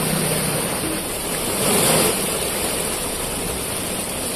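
Floodwater rushing over a submerged causeway: a steady rush of water that swells briefly about two seconds in.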